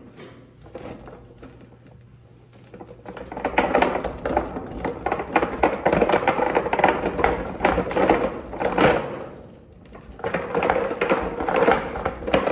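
Dense scraping and rustling made of many quick small clicks, starting about three seconds in, easing off briefly near ten seconds, then picking up again.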